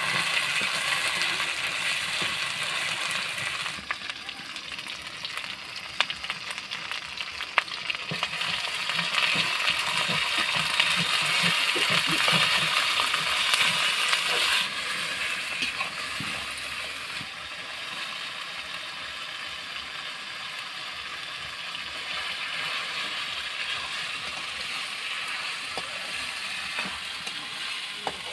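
Onions and spice paste sizzling in oil in a steel kadai, stirred with a steel spoon that scrapes the pan and now and then clicks sharply against the metal.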